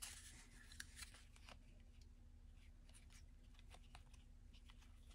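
Near silence: faint, scattered soft ticks and rustles of trading cards being handled, over a faint steady hum.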